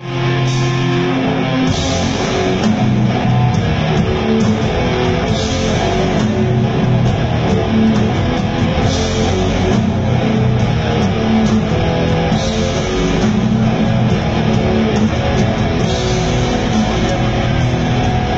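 Metal band playing live at full volume: heavy distorted electric guitars, with a bright crash accent about every three and a half seconds.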